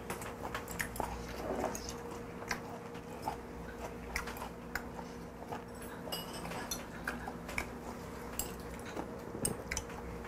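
Close-up eating sounds: chewing and small mouth clicks, with scattered light taps of metal chopsticks against a small dish, over a steady low hum.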